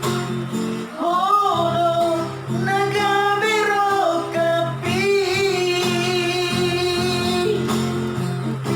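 Singing with long held, wavering notes over guitar accompaniment.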